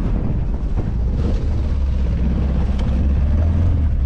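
Outboard motor of a small fibreglass fishing boat running steadily, a low even drone, with a few faint ticks over it.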